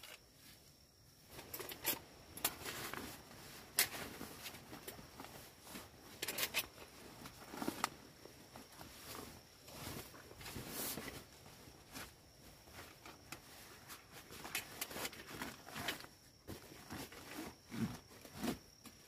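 Nylon fabric rustling and crinkling as a stuff sack and a backpack are handled and packed, in irregular bursts with small scrapes.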